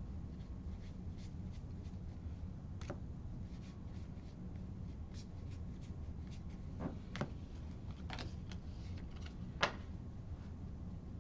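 A handful of trading cards being flipped through by hand: faint, scattered card clicks and slides over a steady low room hum. A few sharper clicks come about seven and eight seconds in, and the loudest, a single tap, comes near the end as the stack is set down.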